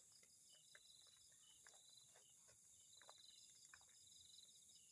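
Faint night insects chirping in short repeated pulses over a steady high-pitched drone, with a few faint ticks.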